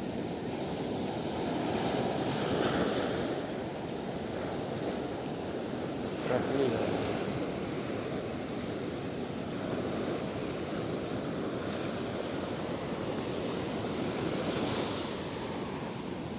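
Sea surf washing and breaking against a breakwater, with wind gusting on the microphone; the surf swells louder a few times.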